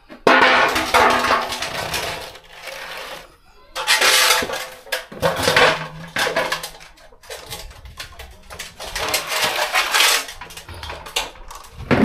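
Water and soaked grains sloshing and pouring in aluminium basins as they are rinsed with a plastic colander, in three loud spells of splashing with clinks of metal between them.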